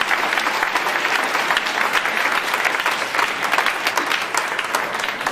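Audience applauding: many hands clapping in a dense, steady patter, easing off slightly near the end.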